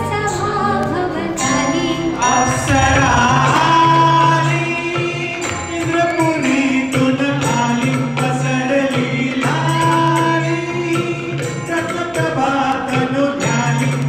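Live Marathi film song performed by a small band: singers on microphones over acoustic guitar, keyboard and tabla, with a steady percussion beat.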